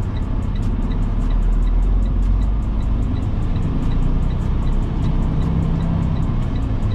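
Semi truck's diesel engine running at low speed, heard from inside the cab, with music with a steady beat playing faintly over it.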